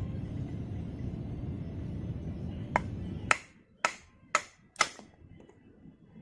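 Five sharp knocks or clicks about half a second apart, the first coming over a steady low rumble that stops about three seconds in.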